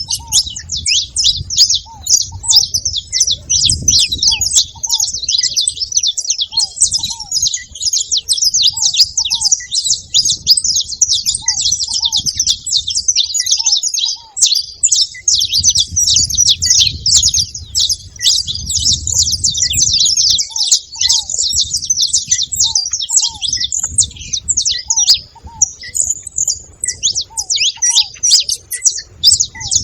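Saffron finch calling and singing: a dense, unbroken stream of rapid, high chirps.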